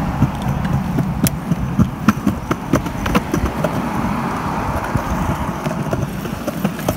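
Bicycle rolling along a concrete sidewalk: a steady low rumble from the tyres, with many irregular sharp clicks and rattles from the bike as it rides over the pavement.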